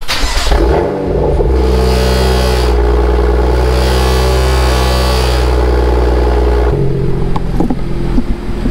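BMW M2's engine, heard through its M Performance exhaust, on a cold start: it fires and flares up in the first second or so, settles into a steady fast idle, then about seven seconds in the note drops and turns rougher.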